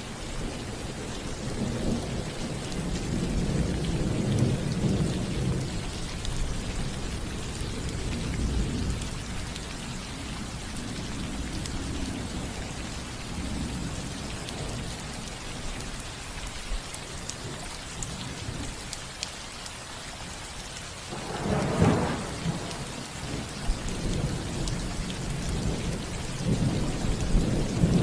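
Rain falling steadily on a roof, with thunder: long low rumbles in the first third, a sharper thunderclap about three quarters of the way through, and another rumble building near the end.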